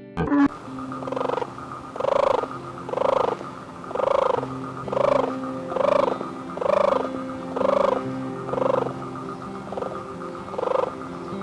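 A frog croaking over and over, about one rough pulsed croak a second, over soft background music with long held notes.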